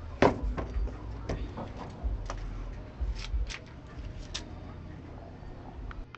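Scattered sharp clicks and light knocks, the loudest about a quarter second in, over a steady low hum that cuts off at the end.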